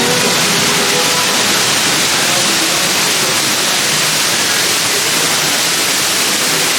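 Steady rush of water along a log flume ride's channel, an even hiss with no breaks.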